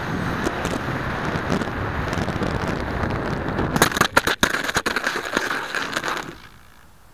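Air rushing over the microphone of a small RC foam flying wing's onboard camera as it skims low over snow. About four seconds in, a quick cluster of knocks as it touches down, then a skidding rush for a couple of seconds that stops as the plane comes to rest.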